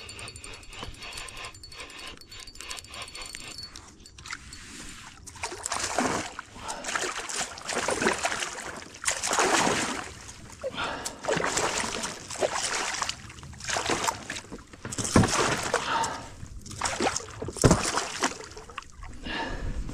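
Water splashing and swishing in repeated surges about every second or two, starting about five seconds in.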